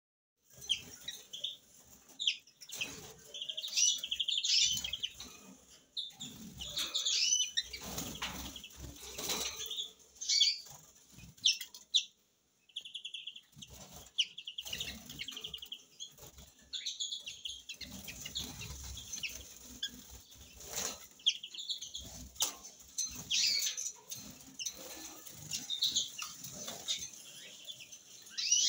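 Caged finches chirping and singing in quick trills, with fluttering wings and low rustling thumps as the birds move about the cage.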